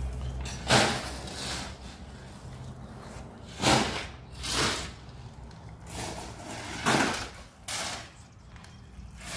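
Drainage gravel being shoveled and poured, heard as a string of short, gritty rushes about half a second each at irregular intervals, over a low rumble.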